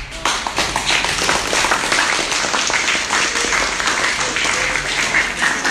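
A roomful of young novice monks applauding: dense clapping of many hands.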